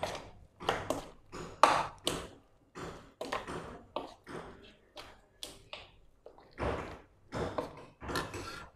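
Metal spoon stirring mutton pieces in a wet curd-and-cream marinade, clinking and tapping irregularly against the sides of the bowl.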